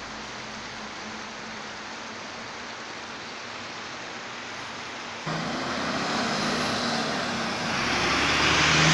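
A steady rushing hiss of background traffic, then after a sudden cut, street traffic close by: a lorry and an articulated city bus passing, their engine noise swelling to its loudest near the end.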